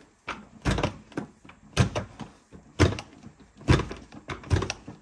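Carpet stretcher (knee kicker) being kicked repeatedly to tension a stair carpet runner and hook it onto the gripper strips. It gives a series of dull thumps, the loudest about one a second, with softer knocks between.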